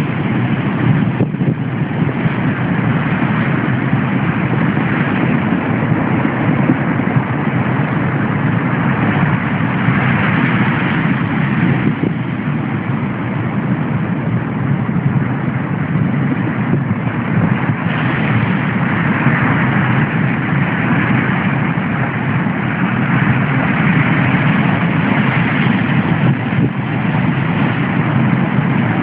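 Rough sea surging and foaming around concrete breakwater blocks and washing over a pebble beach: a steady, loud rush of surf.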